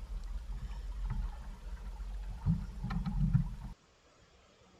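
Low, buffeting rumble of wind on the microphone and water noise aboard a small sailboat under way, with a few faint clicks. It cuts off abruptly near the end, leaving about a second of silence.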